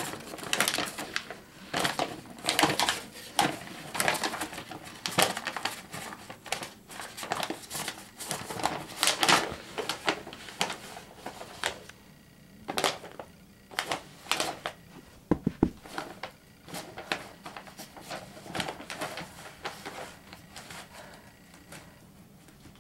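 Sheet of paper rustling and crinkling in quick irregular bursts as a puppy bites and drags it across carpet, thinning out and fading in the second half, with one low bump about halfway through.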